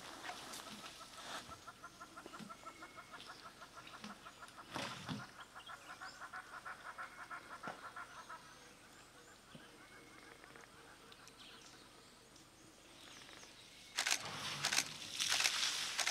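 A bird calling a rapid, evenly repeated run of notes for several seconds. Near the end come loud bursts of rustling noise.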